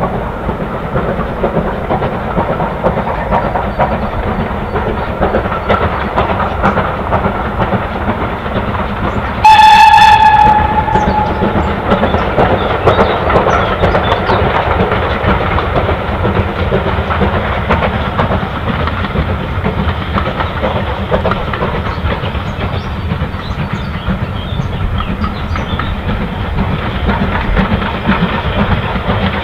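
BR Standard Class 4 tank locomotive 80104 working a train, its steady exhaust and running noise heard throughout, with one short steam whistle of about a second, the loudest sound, roughly a third of the way in.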